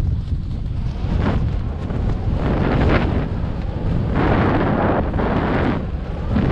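Strong wind buffeting the microphone: a constant low rumble, with louder gusts about two and a half seconds in and again from about four to six seconds.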